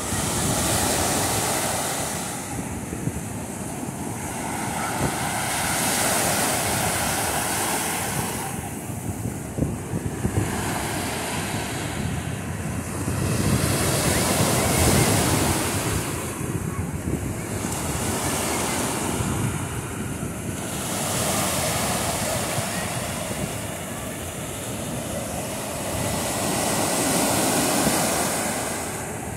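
Surf on a sandy beach: small waves breaking and washing up the sand, the wash swelling and fading every few seconds.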